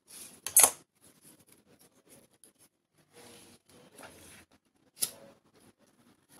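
Grosgrain ribbon and a metal ruler being handled on a cutting mat: light scattered tapping and rustling, with a sharp click about half a second in and another near five seconds.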